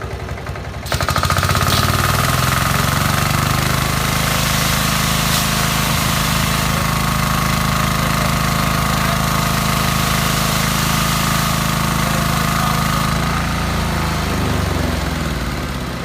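Kärcher HD 1050 DE pressure washer's diesel engine idling. About a second in, a loud hissing water jet starts and the engine revs up under load, as the pressure servo brings it up to speed. It runs steadily, then near the end the spray stops and the engine drops back to idle.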